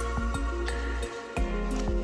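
Soft, slow instrumental background music with sustained notes over a steady low bass, which drops out briefly just after a second in.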